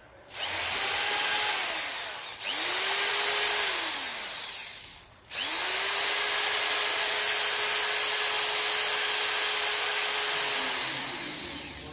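Corded drill-driver motor spinning up and winding down three times: two short runs of about two seconds, then a longer steady run that winds down near the end.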